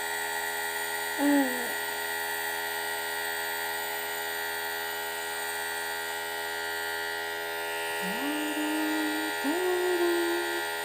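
Compressor nebulizer running with a steady hum during an inhalation treatment for a baby's cough. A voice makes a short falling sound about a second in, and longer rising-then-held sounds near the end.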